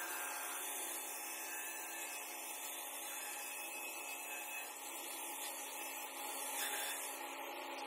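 Handheld electric grinder running steadily against the edge of a granite slab: a constant motor hum under an even abrasive rubbing noise.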